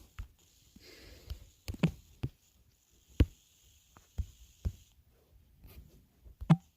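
Irregular sharp clicks and taps from hands working a computer, about nine in all, with a faint hiss between about one and five seconds in.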